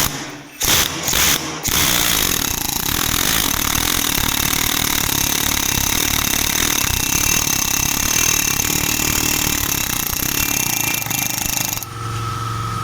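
Pneumatic air chisel hammering rust off the outer rim of a brake disc: a few short bursts, then a steady run of about ten seconds that stops near the end. The rust ridge it chips away had built up on the disc's edge and was catching the caliper's damper plates, causing the brake squeak.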